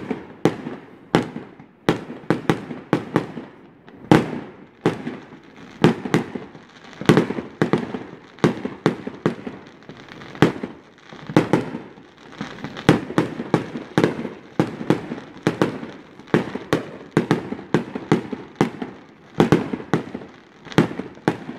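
Fireworks display: aerial shells bursting overhead in a rapid, irregular string of sharp bangs, about one to three a second.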